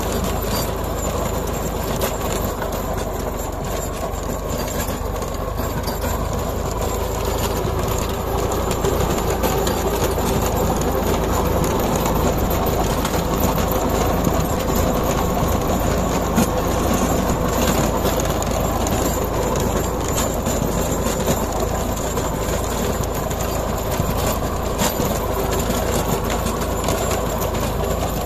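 Tractor running under load with a rear-mounted rotary tiller churning through dry soil: a steady mechanical rumble and rattle with many small knocks.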